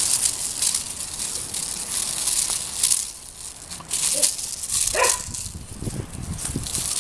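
Dry leaves and grass crackling and rustling as a puppy runs and drags a plastic hoop across the lawn. About five seconds in there is one short pitched puppy vocal sound.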